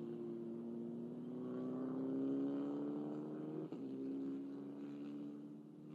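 Race car engine running under load, its pitch climbing slowly, then a brief break and a drop in pitch about three and a half seconds in, as at a gear change.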